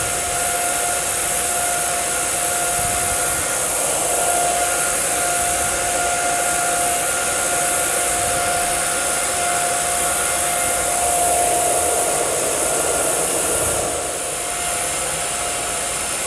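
TIG welding arc from a Lincoln Electric Aspect 375 burning steadily during a vertical-up root pass: a continuous hiss with a faint steady whine running through it, dropping slightly in level near the end.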